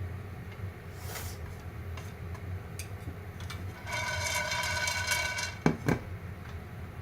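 A held electronic tone lasts about a second and a half, then two sharp clicks follow close together, over a steady low hum.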